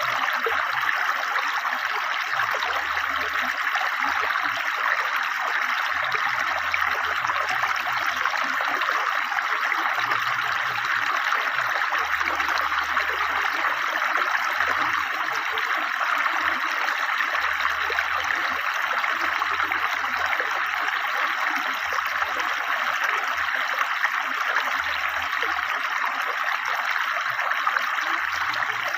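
Swiftly flowing river water, a steady rushing sound with no breaks.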